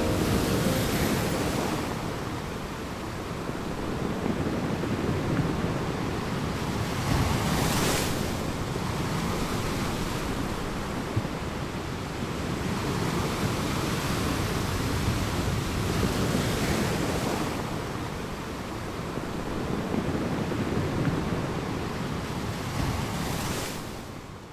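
Rushing water noise, swelling and ebbing every few seconds like surf, then fading out at the very end.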